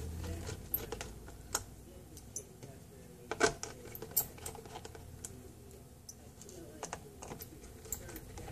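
Scattered light clicks and taps of a hand handling the underside of a Panasonic CF-Y5 laptop's case, irregular, with one sharper click about three and a half seconds in.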